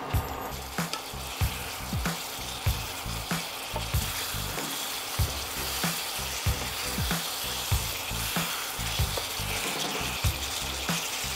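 Chicken pieces sizzling in a bubbling sauce in a frying pan as they are stirred and turned with wooden spatulas. Under it runs a steady low beat of about three thumps every two seconds.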